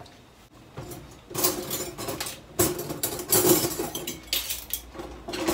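Dishes and cutlery clattering: bowls knocking on the counter and spoons rattling as they are taken from a kitchen drawer.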